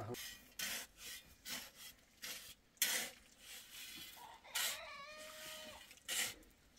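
Repeated scraping, rasping strokes at an uneven pace, about one every half second to a second, with a faint brief voice-like call about five seconds in.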